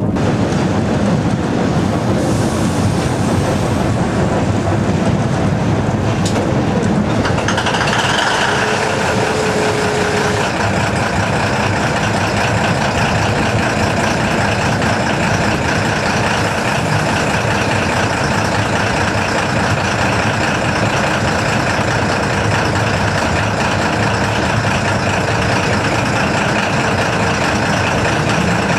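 Small diesel shunting locomotive's engine running steadily, heard close up from the locomotive. The sound changes about seven seconds in, and a short steady tone follows for about two seconds.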